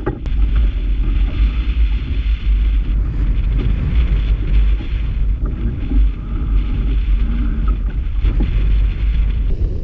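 Strong wind buffeting the camera microphone as a steady, loud low rumble.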